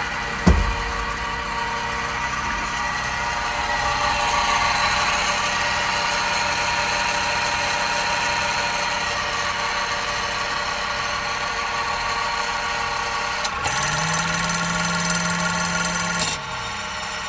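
A Daihatsu Hijet truck's three-cylinder engine runs steadily with the seat off. Over it comes the rattling and droning of its air-conditioning compressor, whose clutch has broken. There is a single knock about half a second in, and a humming tone rises near the end, holds, then drops away.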